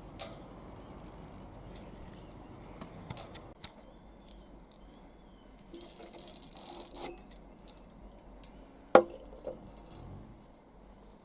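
Scattered small clicks and knocks of things being handled, with one loud sharp clink that rings briefly about nine seconds in.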